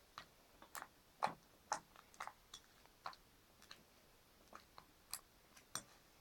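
Homemade orange slime made with Monami glue being squeezed and folded in the hands, giving short sticky clicks and pops at an irregular pace, about two or three a second.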